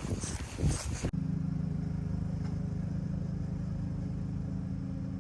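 A rough, gusty rushing noise for about a second, then an abrupt cut to a vehicle engine running at a steady speed: an even, unchanging low hum.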